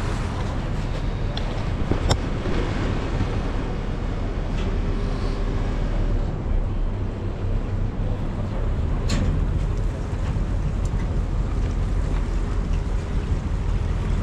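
Boat engine running with a steady low hum, with wind noise on the microphone and two brief sharp clicks about two and nine seconds in.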